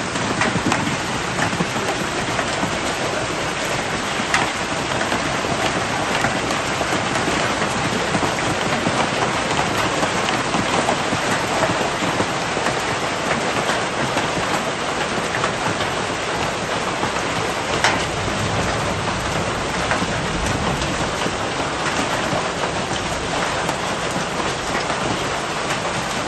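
Heavy rain mixed with hail pelting down on the street and roofs: a dense, steady hiss, with a few sharper knocks standing out.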